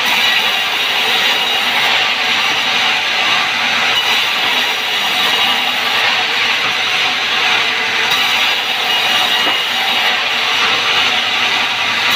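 Large sawmill band saw running and ripping a wooden beam lengthwise into boards, a loud steady sawing noise.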